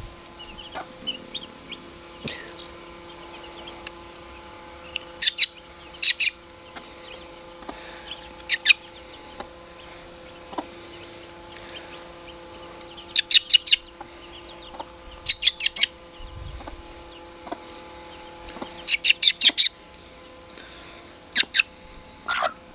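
A hen with her young chicks: short runs of quick, high chirps every few seconds, with soft clucking.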